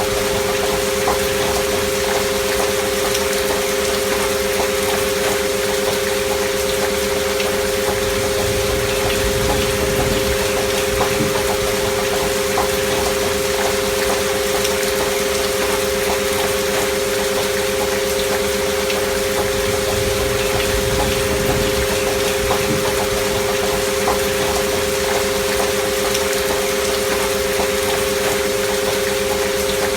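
Recorded rain falling steadily, mixed with two steady pure sine tones near 500 Hz: a healing-frequency track built on 528 Hz with a binaural alpha-wave beat.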